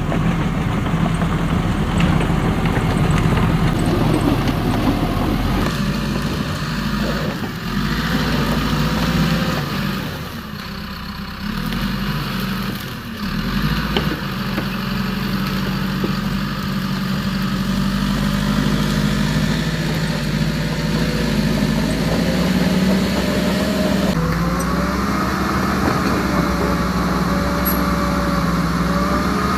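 Remote-control toy excavator working: a steady engine-like hum with small electric motor whines that rise and fall as the arm and tracks move.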